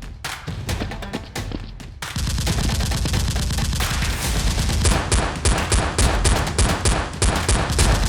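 Rapid gunfire over background music: scattered shots at first, growing into dense continuous firing about two seconds in, with fast repeated shots near the end.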